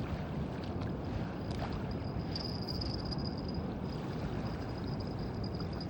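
Steady low rumbling noise of a boat on the water, with a faint high-pitched whine that grows a little louder in the middle.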